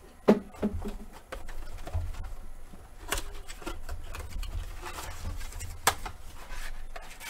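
A cardboard trading-card blaster box being handled and opened by hand, with rustling and low bumps of handling and three sharp snaps: about a third of a second in, around three seconds, and near six seconds.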